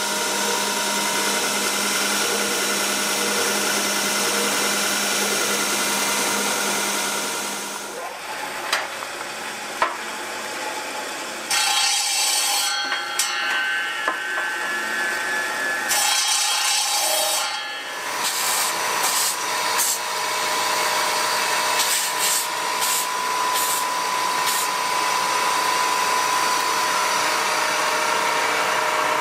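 Electric woodworking machines running with a steady hum and whine, joined by a few knocks and then repeated bursts of wooden bats being ground or sanded against a spinning disc.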